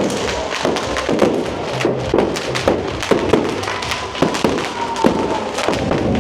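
Fireworks and firecrackers going off continuously, many irregular bangs and cracks overlapping, with music underneath.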